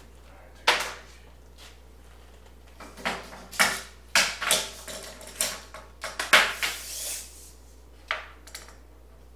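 Irregular sharp knocks and clattering of wood pieces, about a dozen in all, with the densest and loudest cluster around six to seven seconds in.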